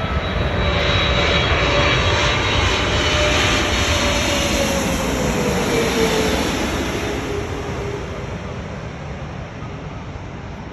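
Boeing 777 twin-jet on landing approach passing by, its turbofan engines whining with a tone that slides down in pitch as it goes past. It is loudest over the first half, then fades away.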